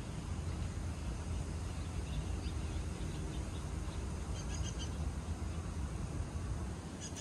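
Steady low outdoor rumble, with faint high bird chirps a few times: about two seconds in, again near the middle, and near the end.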